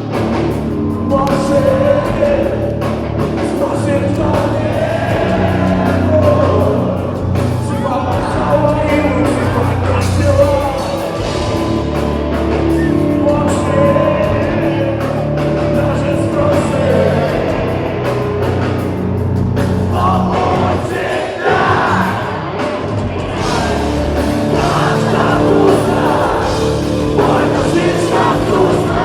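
Heavy rock band playing live: distorted guitars, bass and drums with a singer's vocals over them, loud and continuous.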